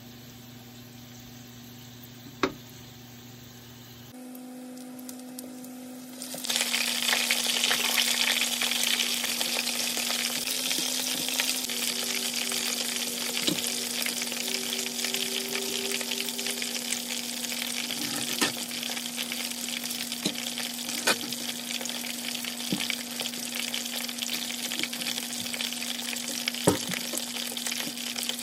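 Dumplings shallow-frying in hot oil in a pan. After a quieter stretch with a low hum, steady loud sizzling sets in about six seconds in over a constant low hum, with a few sharp clicks scattered through it.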